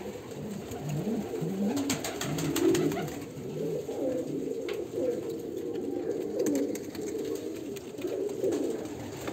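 Domestic pigeons cooing continuously with low, warbling, overlapping coos, and a few faint clicks about two to five seconds in.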